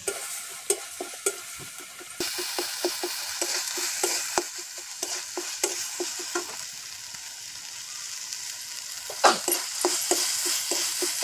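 A wooden spatula scrapes and knocks against a steel kadai as a spice paste with bitter greens (tita saag) is stirred and fried in oil, sizzling steadily. The sizzle and stirring get louder about two seconds in.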